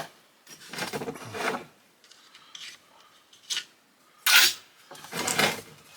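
Metal parts of a Badger garbage disposal and hand tools clinking and scraping as the unit is pulled apart, in several short bursts with the loudest about four seconds in.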